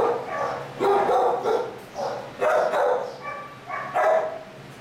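Dog barking repeatedly in a shelter kennel, a run of loud barks about a second apart.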